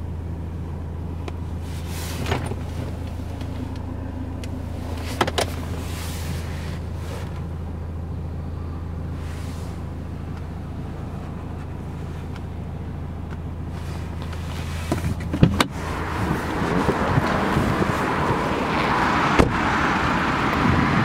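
Steady low hum of a Mercedes C220 CDI's turbo-diesel engine idling, heard inside the cabin, with light clicks about two and five seconds in. About three-quarters of the way through a car door clunks, and the hum gives way to a louder, broader outdoor hiss.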